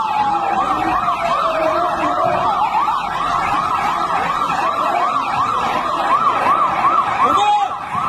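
A siren sounding a fast up-and-down yelp, about three sweeps a second, over street noise. A second, lower tone slides slowly downward during the first few seconds.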